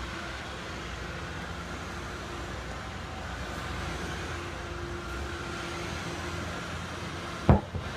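A large tractor tire is tipped over and slams flat onto concrete with one heavy thud near the end, during a tire-flip exercise. Before it, a steady low rumble runs in the background.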